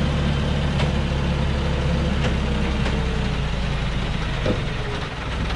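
Loaded log truck's diesel engine running low and steady as the truck creeps down a steep dirt bend, with a few short sharp clicks over it.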